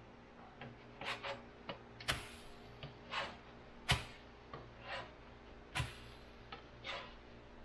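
Plastic spatula scraping under pancakes on a nonstick electric griddle and slapping them back down as they are flipped: a string of short scrapes with three sharper slaps about two seconds apart.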